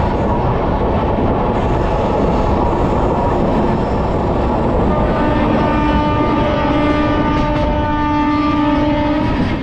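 Passenger train running at speed through a tunnel, its wheel and track noise loud and steady, heard from an open coach window. About five seconds in, a train horn sounds one long steady note lasting about four and a half seconds, ending as the train comes out of the tunnel.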